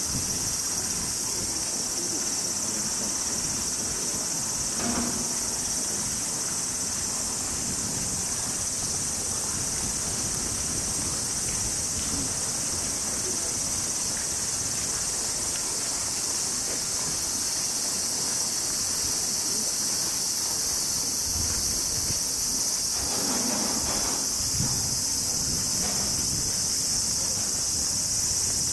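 Chorus of summer cicadas, a steady high-pitched drone.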